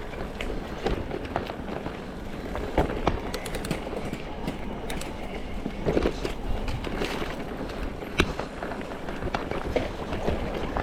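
Mountain bike riding over a rough dirt trail: a steady rumble of tyres on the ground with frequent rattles, clicks and knocks from the bike, the loudest a few seconds apart, and wind on the microphone.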